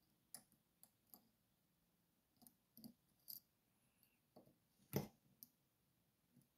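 Faint, scattered clicks of a lock pick working the pin stacks of a 7-pin Magnum Superior lock cylinder held under tension, with one louder click about five seconds in.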